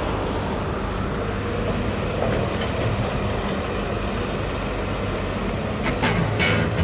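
Heavy construction machinery running with a steady low engine drone, with a few sharp clanks near the end.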